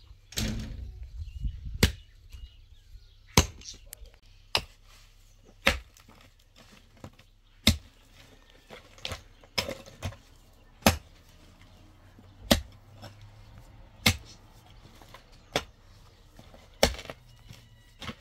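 A hand digging tool striking and breaking up hard, stony ground, about a dozen sharp blows spaced roughly a second and a half apart.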